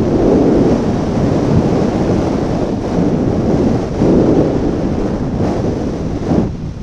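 Strong, gusty wind buffeting the microphone, swelling about half a second in and again around four seconds in, easing near the end.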